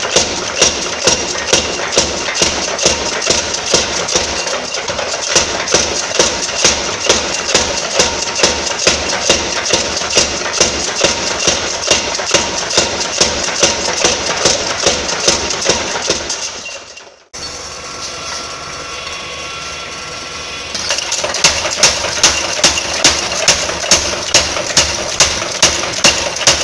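Steady, rhythmic hammer blows on steel at an anvil, about two to three strikes a second, over a continuous rushing forge noise. The hammering breaks off about two-thirds of the way through, leaving only the rushing noise, then starts again a few seconds later.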